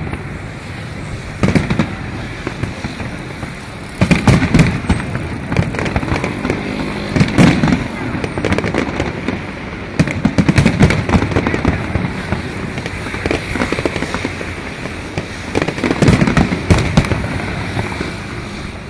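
Aerial fireworks display: shells bursting in a string of loud booms every few seconds, with crackling between them.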